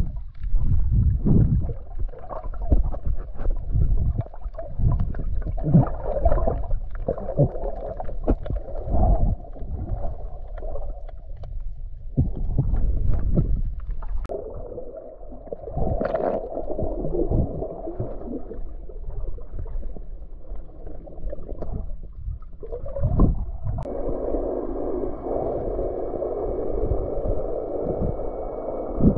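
Underwater sound picked up by a submerged camera: muffled sloshing with a low rumble and irregular dull thumps and knocks. About 24 s in, a steadier hum with a thin, high, steady whine sets in.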